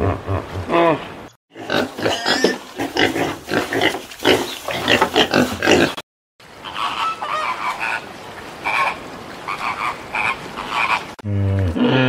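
Hippopotamus calls: deep, pitched grunts at the start and a falling grunt near the end, with a run of other animal calls in between, rapid pulsing calls and then shorter higher ones. The sound cuts out briefly twice.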